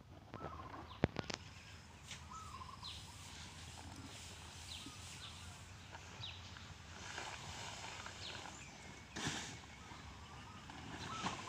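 Small birds chirping in short falling notes over faint outdoor background, with two sharp clicks about a second in. About nine seconds in comes a brief rustle as the plastic tarp slides off the horse's back.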